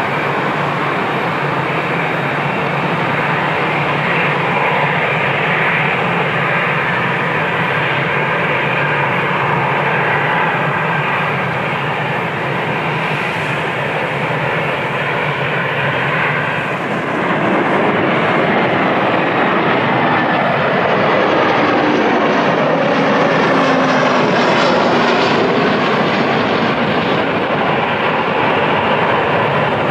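Jet airliner engines running with a steady rush. About seventeen seconds in, the sound changes to an Airbus A320 on landing approach passing close, its engine whine falling in pitch as it goes by.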